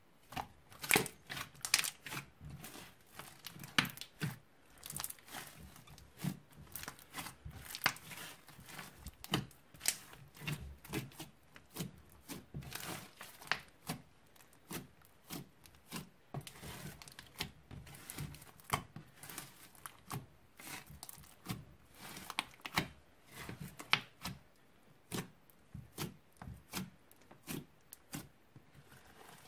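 Hands mixing, stretching and squishing slime, making dense, irregular sticky crackles and pops.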